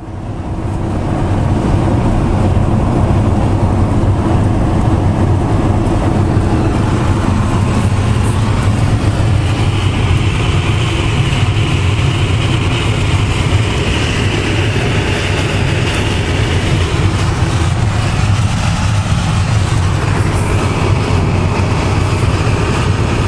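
Wind and road noise inside a Winnebago LeSharo driving at highway speed: a steady low rumble with a rushing hiss, and a higher rush that swells for several seconds in the middle. The wind noise comes from a metal flange on the opening side window catching the air and resonating, not from a leak.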